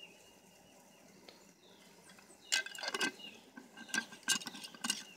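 Quiet for the first couple of seconds, then a run of sharp metallic clinks and clanks, several a second, each ringing briefly: a speckled enamelware cooking pot and its lid being handled.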